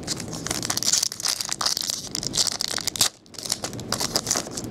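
Foil trading-card pack wrapper crinkling as it is handled and torn open, with a short pause about three seconds in.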